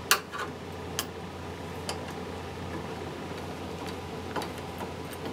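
A few scattered light metallic clicks as a screwdriver works the cable-clamp screw on a metal electrical junction box, loosening it. A steady low hum runs underneath.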